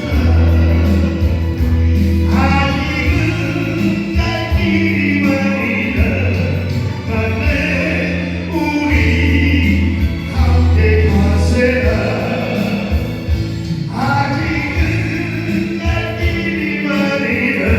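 Music: voices singing a slow song together over sustained low bass notes.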